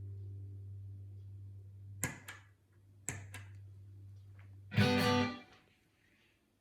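Clean Stratocaster electric guitar through a 1980 Fender Pro Reverb amp and a B6K compressor pedal at a 50% parallel blend. A low note sustains and slowly fades, a few short picked notes follow about two and three seconds in, and then a loud note is struck near the end and cut off quickly.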